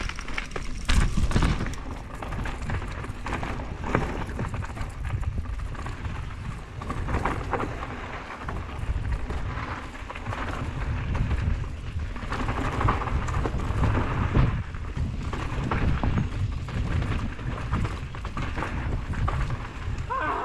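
Wind buffeting the microphone over the rumble of mountain bike tyres rolling on a rocky dirt trail, with the bike rattling and knocking over bumps; the sharpest knocks come about a second in, around four seconds, and near the middle.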